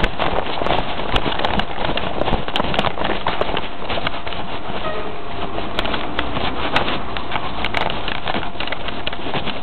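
Wind rushing over a handheld camera's microphone as it is carried along quickly, with many rapid clicks and knocks from the camera being jostled.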